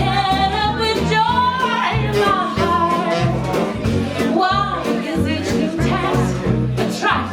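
A woman singing a jazz standard with live band accompaniment, over a bass line stepping from note to note.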